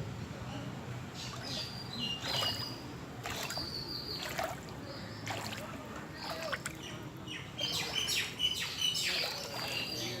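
Birds chirping in many short, high repeated notes, mixed with short sharp knocks or splashes over a low steady background.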